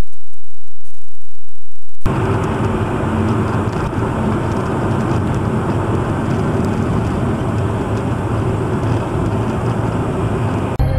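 Steady road and engine noise of a car driving on a highway, heard from inside the car as a dashcam picks it up. It starts abruptly about two seconds in, after near silence.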